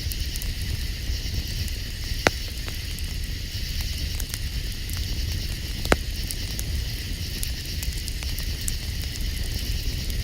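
Campfire crackling, with two sharp pops about two and six seconds in, over a steady high-pitched hiss and a low rumble.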